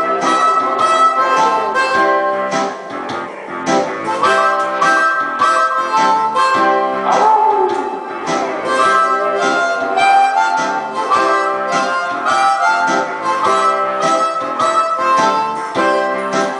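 Amplified blues harmonica, played cupped against a handheld microphone, wailing held and bent notes over a backing with a steady beat.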